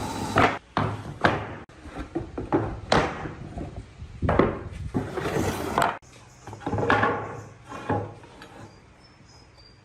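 Wooden pieces being handled in a workshop: irregular knocks and scrapes of wood on wood, thinning out over the last few seconds.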